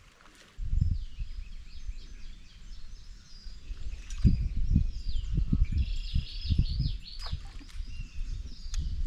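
Songbirds chirping and warbling, with irregular low rumbling thumps underneath.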